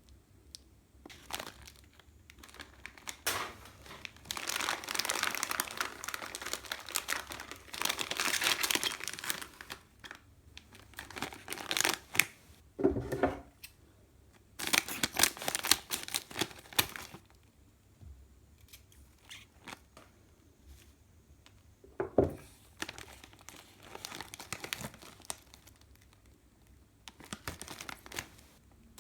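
Plastic packaging of a rice-cracker snack crinkling and rustling in irregular bursts as it is handled and torn, with a couple of short dull knocks.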